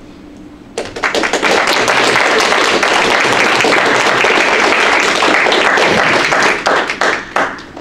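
Small audience applauding, starting about a second in and dying away with a few last claps near the end.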